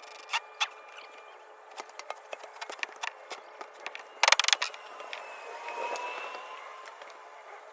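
Building work with a cordless drill and wooden framing lumber: scattered knocks and clicks, then a short burst of rapid ratcheting clicks about four seconds in, the loudest sound. After it comes a faint, slightly rising whine.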